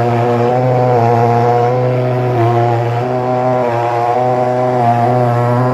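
Pulse-jet thermal fogging machine running with a loud, steady drone, its pitch wavering slightly.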